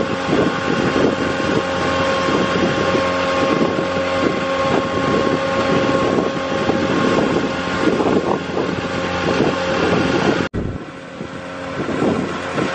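Motorboat engine running steadily under way, with water rush and wind noise on the microphone. The sound briefly drops out about ten and a half seconds in, then carries on.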